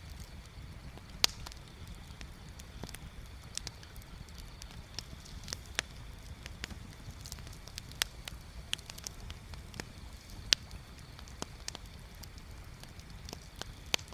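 Wood bonfire crackling, with irregular sharp pops and snaps, the loudest about a second in and near ten seconds in, over a steady low rumble.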